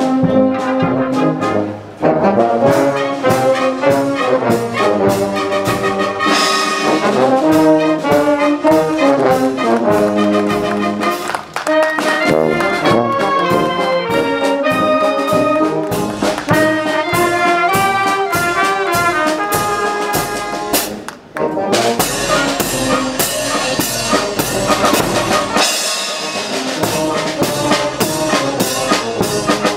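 A marching philharmonic wind band, brass, clarinets and snare drum, playing a march, with short breaks between phrases about two, eleven and twenty-one seconds in. In the last third the cymbals and drums come through more.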